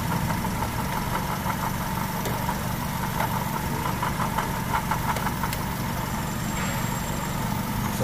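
Perodua's 1.5-litre 2NR-VE dual VVT-i four-cylinder engine idling steadily, with a grinding hum from the belt-driven accessories at the front of the engine, which the mechanic suspects is the water pump.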